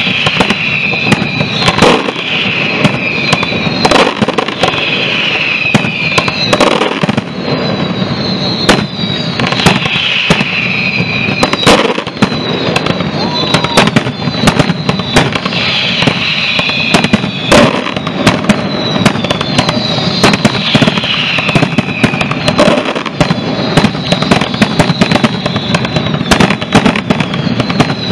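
Aerial fireworks display: a dense, continuous run of shell bursts, bangs and crackling, with high falling whistles recurring every couple of seconds.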